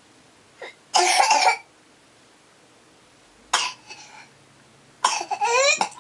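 A young child coughing in short harsh fits: one loud cough about a second in, another about halfway, then a quick run of coughs near the end with a rising, pitched sound between them.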